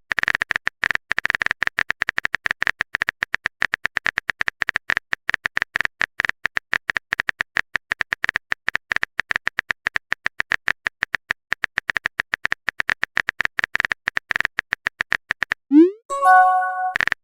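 Rapid, irregular clicks of a phone keyboard typing sound effect. About sixteen seconds in comes a short rising whoosh and a brief tone of several notes, a message-sent alert.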